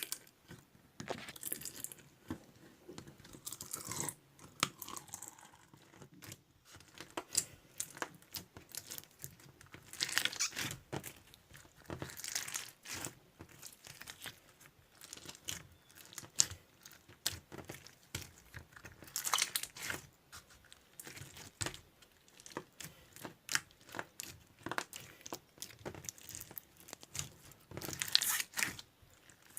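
Crunchy slime being worked by hand, giving a dense run of crackling, popping clicks with louder bursts of crunching every few seconds.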